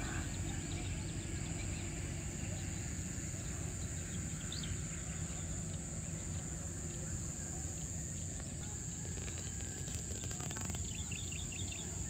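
Insects trilling in one steady, unbroken high tone, with scattered short bird chirps and a low steady rumble underneath.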